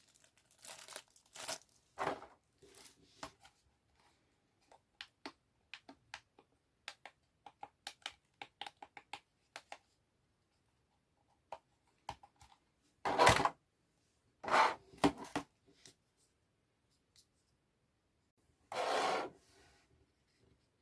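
Packaging being opened by hand: scattered crinkles and small clicks, then several louder tearing rips in the second half, the last about a second long.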